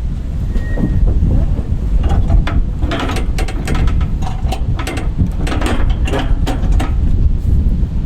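Wind rumbling on the microphone, with a run of irregular clicks and rattles from about two to seven seconds in.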